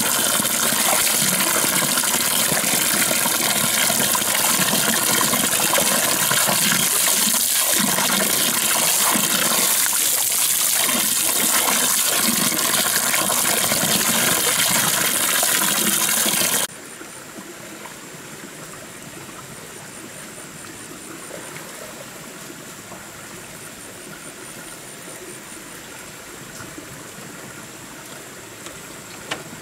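A stream of water pours from a pipe into a plastic-lined bathtub and splashes over a person's legs, a loud, steady rush. About 17 seconds in it stops abruptly, leaving a much quieter background.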